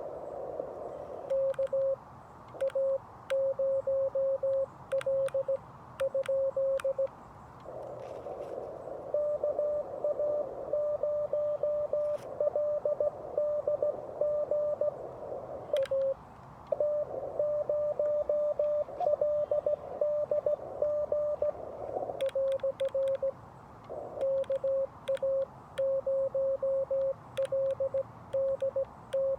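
Morse code from a Xiegu G90 HF transceiver at about 17 words per minute: one steady tone keyed in dots and dashes. In some stretches the tone is clean, with the sharp clicks of the hand paddle over it, the operator's own sending heard as sidetone. In others it comes through a hiss of band noise, another station's reply being received.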